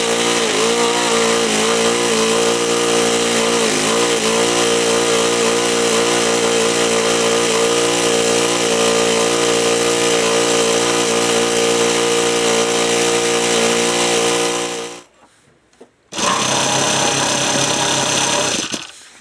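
Saito FA-65 four-stroke glow model-aircraft engine running steadily at an idle that stays too high, even with the sub-trim and endpoint adjustments maxed out. It stops suddenly about 15 seconds in. After a second of quiet, a different steady whir follows for about two and a half seconds and cuts off near the end.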